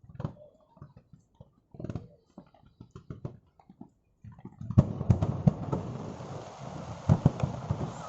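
Aerial fireworks going off. Scattered pops and crackles come first, then about five seconds in a dense, continuous crackling sets in, with repeated booms.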